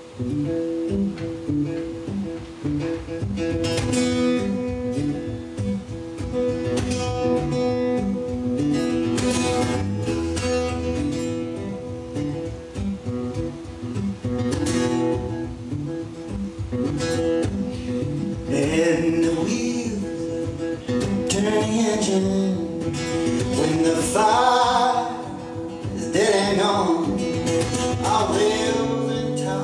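Solo acoustic guitar played live, strummed and picked, with a man's singing voice coming in about two-thirds of the way through.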